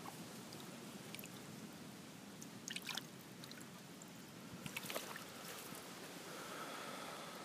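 Faint steady trickle of shallow creek water, with a few light clicks about three and five seconds in.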